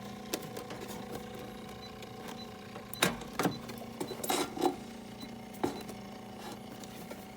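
Continuous inkjet printer running with a steady mechanical hum, as its ink system works, with a few short clicks and knocks around the middle.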